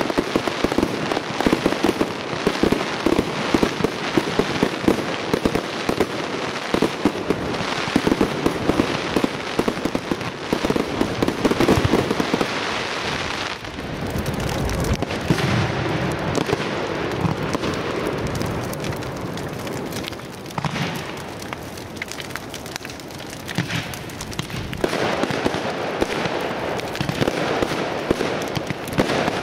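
Aerial firework shells bursting in a display, with dense crackling from crackle stars. About halfway through, the crackling thins out and deeper booms and rumble take over. Near the end, the dense crackling returns.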